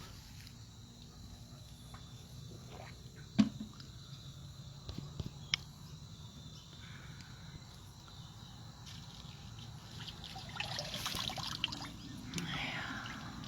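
Someone drinking water and handling the drinking vessel: a sharp knock about three and a half seconds in, a few lighter clicks, then a stretch of liquid sound near the end, over a steady background of insects.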